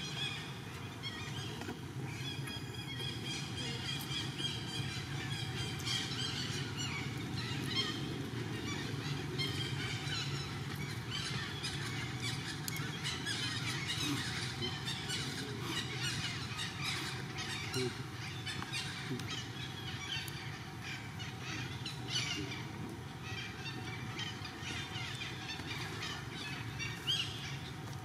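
Many short, high chirps and squeaks, scattered irregularly, over a steady outdoor background.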